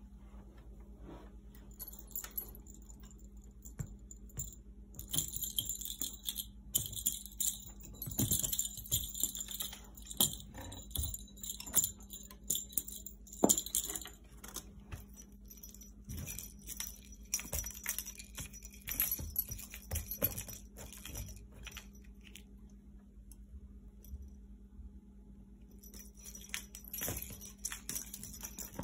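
Cat wand toy with a jingle-bell ball jingling in irregular bursts as it is jerked and dragged across the carpet, with light clicks and taps.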